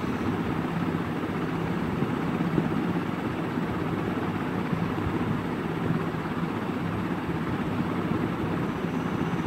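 A steady low rumble throughout, with a spatula stirring and scraping onion-tomato masala in a non-stick frying pan over a lit gas burner.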